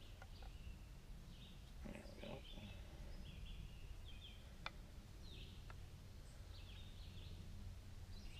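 Faint woodland birdsong, short chirping phrases repeated throughout, over a steady low rumble. Two sharp light clicks near the middle, wood knocking as the crosspiece is pressed into the notches of the forked stick.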